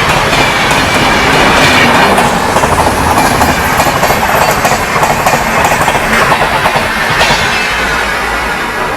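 Indian Railways passenger train rolling past close by, its wheels clattering over the rail joints in a dense, steady rush that eases a little near the end.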